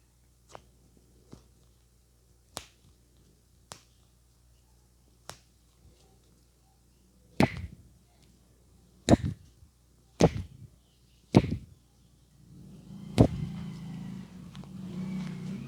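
Sharp slaps and cracks from a barber's hands during a vigorous head massage, about ten in all at uneven intervals. They are lighter at first and loudest in a run from about seven to thirteen seconds in. Near the end a low, uneven rumbling noise rises.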